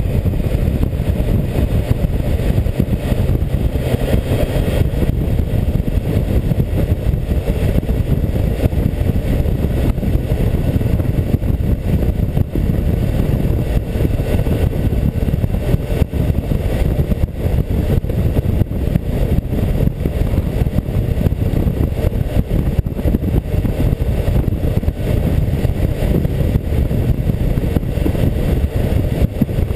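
Loud, steady wind rumble buffeting an action camera's microphone on a tank-mounted suction mount while riding a BMW K1600GTL, with the bike's inline-six engine and road noise running underneath.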